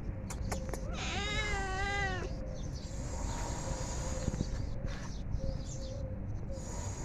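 Domestic cat meowing once, about a second in: a single drawn-out meow, rising then wavering, lasting just over a second.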